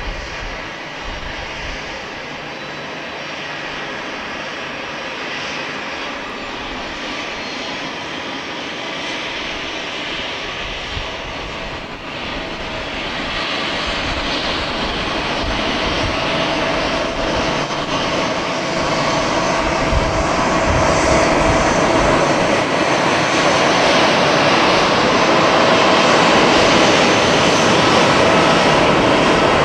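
Twin-engine Airbus A320-family jet airliner on final approach and landing: a steady engine hum that grows steadily louder as it comes in, with a steady fan tone rising out of it from about halfway through.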